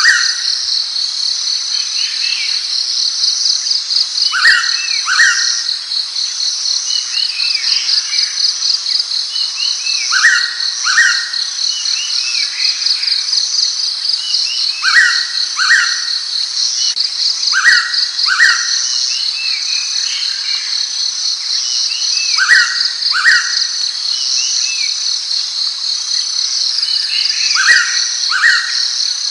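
Blue-winged pitta calling its clear two-note whistle, repeated about every three to five seconds, over a steady pulsing chorus of insects.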